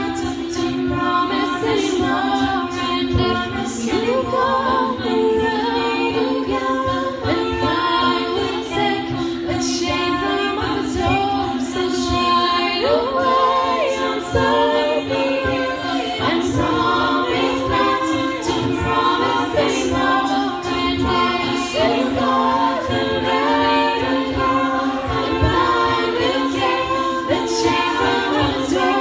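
A group of voices singing together a cappella, several parts in harmony with no instruments underneath.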